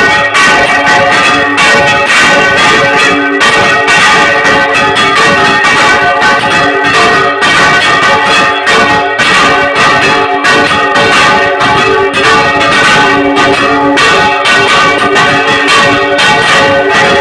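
Several large bronze church bells swung full circle together in a Spanish-style general peal (volteo general), their clappers striking again and again in a loud, dense clamour of overlapping ringing tones, heard from inside the belfry.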